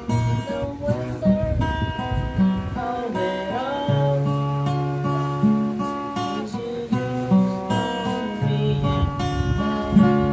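Acoustic cutaway guitar playing chords, each chord left to ring, with the bass note changing every second or two.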